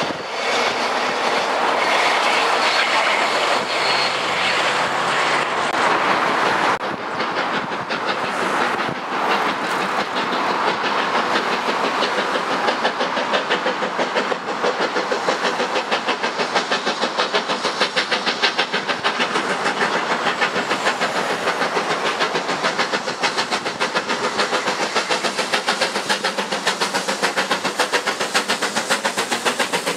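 A rake of passenger coaches running past on the track, then the two-cylinder BR Standard Class 7 'Britannia' Pacific No. 70013 'Oliver Cromwell' approaching and passing under steam. Its exhaust beats come through as a fast, even chuffing that grows louder from about a quarter of the way in, over the rumble of the wheels on the rails.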